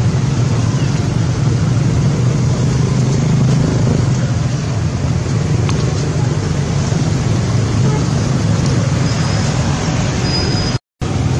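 Steady, loud background rumble and hiss with faint voices, cut off briefly near the end.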